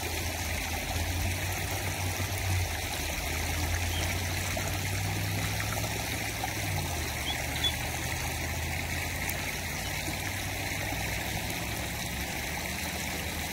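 Small shallow creek trickling and flowing steadily over a rocky bed, with a low steady hum under it that drops in pitch twice.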